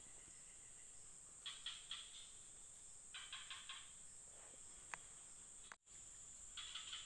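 Faint animal calls: three short bursts of rapid stuttering high-pitched calls, spaced a few seconds apart, over a steady high insect drone.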